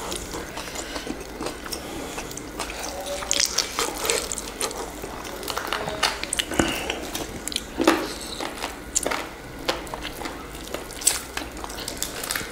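Close-miked eating sounds of people eating chicken wings: wet chewing and mouth smacks, with scattered small clicks at irregular moments.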